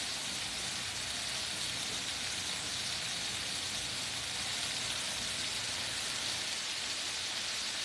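Chicken breasts sizzling in oil in an electric countertop skillet: a steady, even hiss.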